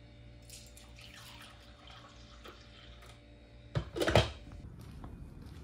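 Coffee poured from a glass drip-coffee-maker carafe into a mug, a splashing stream for about two and a half seconds. About four seconds in comes a clunk and clatter as the glass carafe is set back on the coffee maker.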